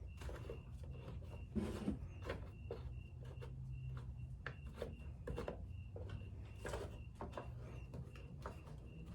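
Scattered light clicks, taps and rubbing of hand work on a lawn mower's air filter box, with the new filter and cover bolts being fitted.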